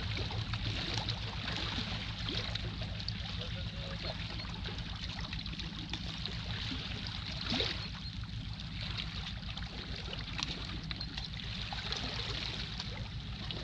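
Small sea waves lapping and trickling among shoreline rocks, over a steady low rumble, with one sharp knock about halfway through.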